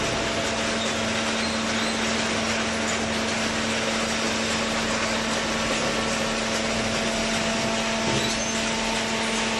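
Vertical hydraulic baler's electric motor and hydraulic pump running with a steady hum over a constant mechanical noise, while it presses newspaper.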